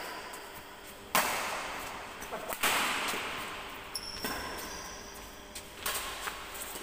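Badminton rackets striking the shuttlecock in a doubles rally: four sharp smacks, roughly one every one and a half seconds, each ringing out in a large echoing hall, with short high squeaks of shoes on the court between them.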